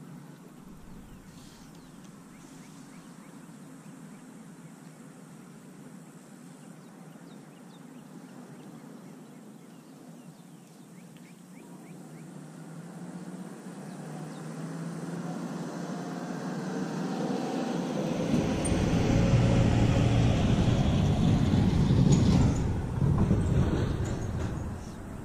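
Wind buffeting an action camera's microphone: a low rumble that builds over the second half and is strongest near the end.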